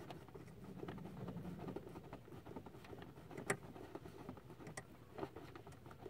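Faint scattered clicks and light rubbing as fingers hand-tighten a brass compression nut onto a water softener's brine line fitting, with one sharper click about three and a half seconds in.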